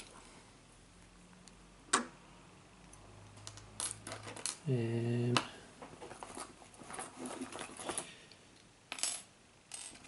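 Small metal lock-picking tools clinking and tapping as they are handled and swapped. There is a sharp click about two seconds in, then scattered light metallic ticks.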